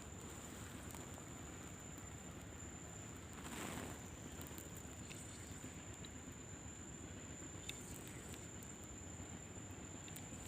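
Quiet outdoor ambience: a steady low rush of wind noise with a thin, steady high-pitched tone like an insect drone. A few faint ticks come through, and the rush swells briefly about four seconds in.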